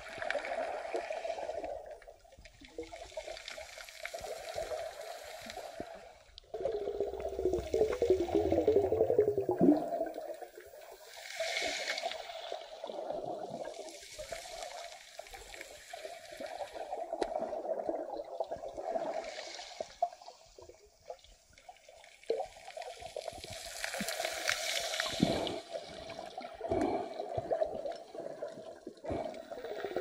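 Shallow seawater heard underwater, surging and sloshing over the pebbly seabed in swells that rise and fade every few seconds.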